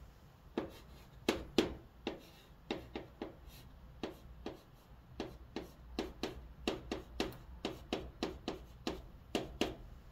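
Chalk writing on a chalkboard: a quick string of short taps and scrapes as Korean letters are drawn stroke by stroke, with a short pause about four seconds in.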